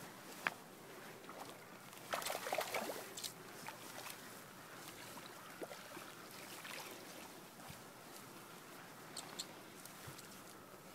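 Faint water splashing and sloshing as a hooked rainbow trout is played at the surface close to the bank, with a louder flurry of splashes about two seconds in lasting about a second.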